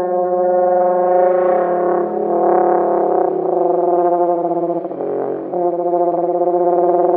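Amurosaurus call sound effect, the imagined voice of a crested hadrosaur: one long call at a steady low pitch, wavering briefly about five seconds in, then fading out at the end.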